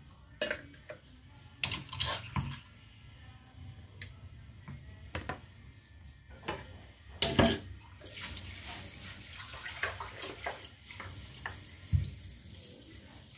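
Kitchen clatter: a scatter of sharp knocks of utensils on metal cookware while ground chili paste is put into an aluminium pot, the loudest a double knock about seven seconds in. A stretch of running water sounds from about eight to eleven seconds.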